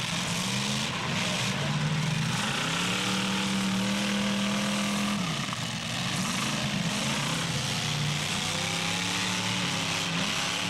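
Several demolition derby cars' engines running and revving at once, their pitches rising and falling over one another over a steady din.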